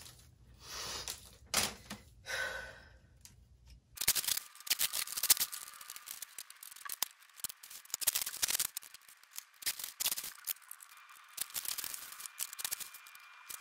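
Protective plastic film being peeled off the clear panels of an IKEA Socker mini greenhouse. Faint handling rustles come first; then, about four seconds in, the film crackles and rustles densely with small scratchy clicks as it comes away.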